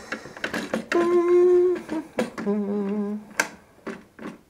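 Sharp clicks and taps of hard plastic parts and a screwdriver being worked inside a Nerf blaster. Over them a man hums two held notes, the first about a second in and a lower, wavering one about halfway through.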